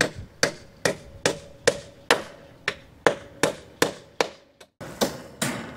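Hammer blows in a steady rhythm, about two and a half a second, each with a short ring. There is a brief break near the end, then two more blows. This fits building a wooden trellis.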